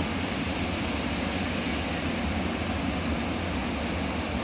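Class 923 'Doctor Yellow' Shinkansen test train running as it enters the station: a steady low rumble with an even hiss.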